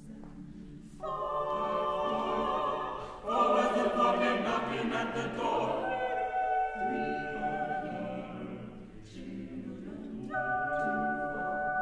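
Mixed SATB chamber choir singing sustained chords, with parts entering in turn; it grows louder about three seconds in, and a fresh chord begins near the end.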